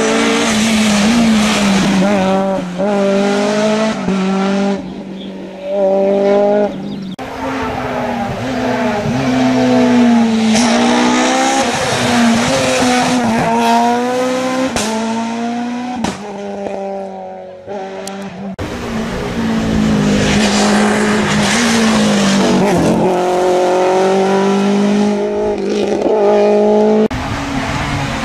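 Rally car engines revving hard as the cars pass one after another, the pitch climbing and breaking off through quick gear changes, dropping on lift-off into bends. The first pass is a Honda Civic rally car.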